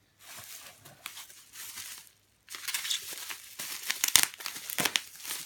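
Bubble wrap and plastic packing crinkling and rustling as hands dig through it and pull a wrapped package out of a cardboard box. The sound breaks off for a moment about two seconds in, then comes back louder, with sharp crackles in the second half.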